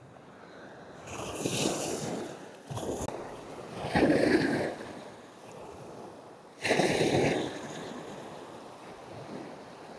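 Small waves breaking and washing up a sandy beach in several rushing surges. The loudest is about four seconds in, and another starts sharply about two-thirds of the way through.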